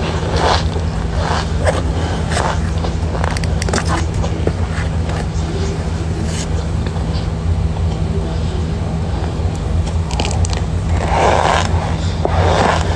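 Chunks of cornstarch being bitten and crunched, a run of irregular crisp crunches, with two fuller crunches near the end. A steady low hum runs underneath.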